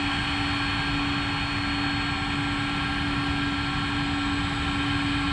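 Jet engines of a Vueling airliner taking off, running steadily: a continuous low rumble with a constant hum and a few high whining tones that hold one pitch.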